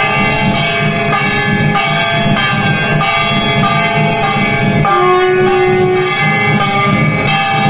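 Bells ringing, struck again and again in a steady rhythm, over a low pulsing beat, with a long held note about five seconds in.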